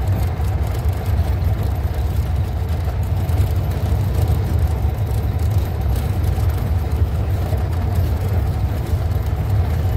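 Safari jeep's engine running steadily as it drives along a dirt forest track, heard as a low, even drone from on board the vehicle.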